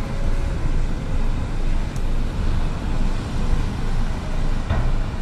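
Steady rumbling wash of river water surging and breaking as a superyacht's hull slides sideways off the launch ways into the river, with a single knock a little before the end.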